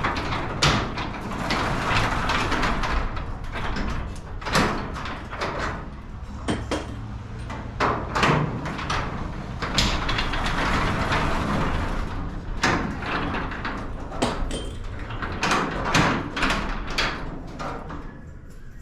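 Irregular metal clanks, knocks and rattling from garage door hardware being worked on during a spring and roller replacement.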